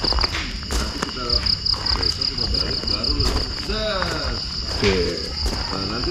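Crickets chirping at night in fast, even trains of high pulses, pausing briefly about a second in, with faint voices of people talking now and then.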